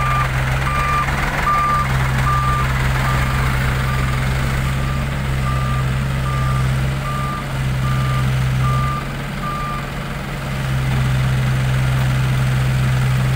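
A truck's reversing alarm beeping steadily, about once every 0.8 seconds, over the steady running of a diesel truck engine; the beeping stops about ten seconds in while the engine keeps running.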